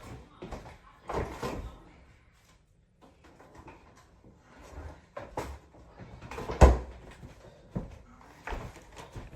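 Irregular knocks and clatters of things being handled in a kitchen, with a sharp thump about six and a half seconds in as the loudest.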